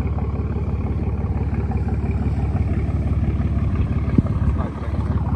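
Engine of a fishing boat motoring past, a steady low drone.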